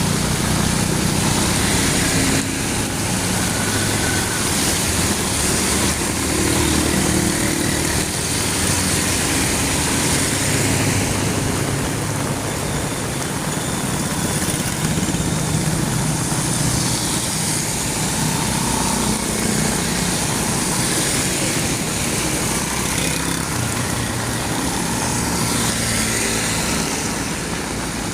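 Heavy rain hissing steadily, with vehicle engines of passing and idling street traffic running low underneath.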